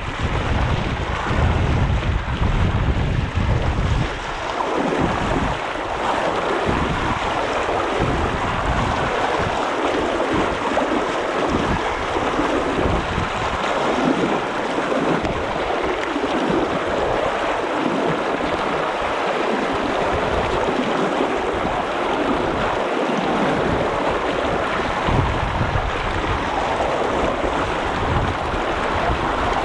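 Steady rush of flowing river water. Wind buffets the microphone with a low rumble for the first four seconds or so.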